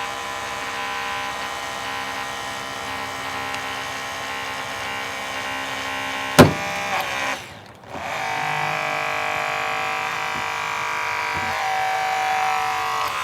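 Holmatro hydraulic rescue cutter running with a steady motor whine as its blades crush a car door hinge, then one sharp, loud crack about six and a half seconds in as the hinge steel is cut through. The whine stops briefly and starts again at a different pitch.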